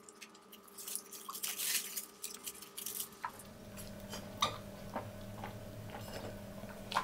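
Close-miked eating sounds: wet finger and lip smacks as rice is picked off a plate, then sips through a plastic straw with a few soft swallow clicks. A faint steady hum comes in about three seconds in.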